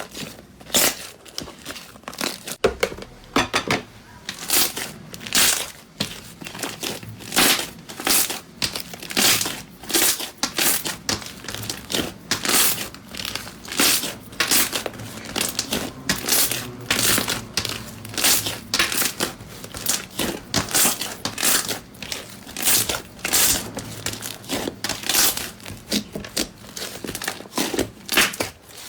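Slime being squeezed, stretched and pressed by hand, giving a steady run of irregular crackling pops and squelches, about one or two a second.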